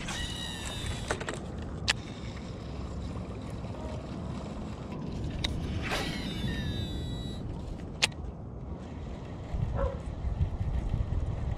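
Baitcasting reel's spool whirring out on a cast, a whine that falls in pitch as the spool slows, heard twice, each followed a second or two later by a sharp click. A steady low wind rumble on the microphone underneath.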